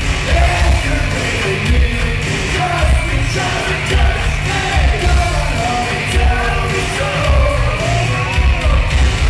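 Live industrial rock band playing loud, with several vocalists singing and shouting over electric guitar and a pounding, heavy beat of kick drum and bass.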